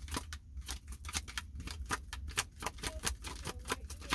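Tarot cards being shuffled and handled: a rapid, irregular run of clicks and snaps as the cards strike one another.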